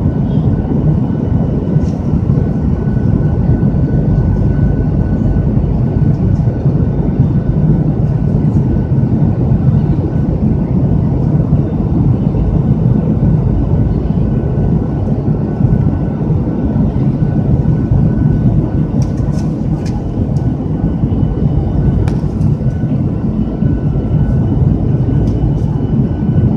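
Steady cabin noise of a jet airliner in flight, heard from inside near the wing: a low rumble of the engines and airflow with a faint steady whine above it.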